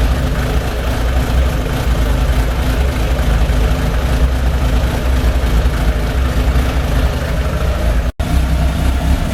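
Suzuki GSF 1200 Bandit's carburetted inline-four engine running steadily at idle, with no rise in revs. There is a brief break in the sound about eight seconds in.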